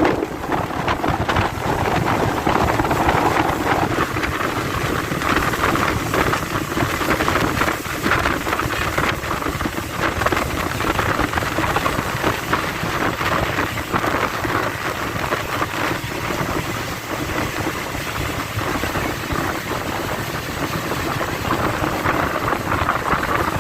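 Steady rushing noise of a moving boat ride: wind buffeting the microphone together with water hissing past the hull.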